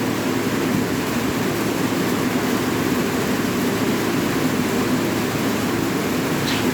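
Steady rain: a dense, even rushing noise with most of its weight low, without let-up.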